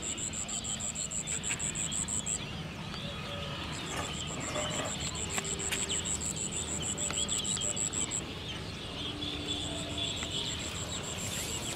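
An insect's high, steady trill that breaks off twice and starts up again, with short bird calls in the background.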